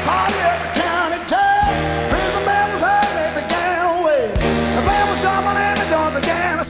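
Rock music: a band playing with a singer's voice over it.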